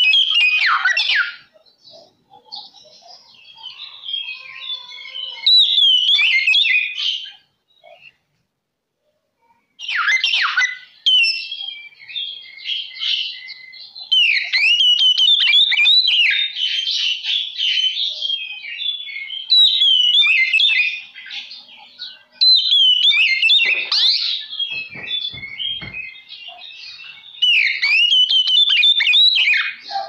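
Oriental magpie-robin singing a loud, varied song of fast whistled phrases, with a pause of about two seconds after some eight seconds.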